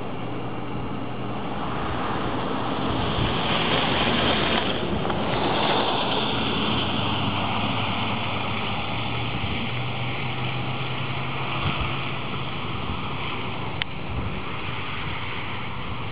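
Steady outdoor rushing noise over a low hum, swelling between about two and six seconds in, with one sharp click near the end.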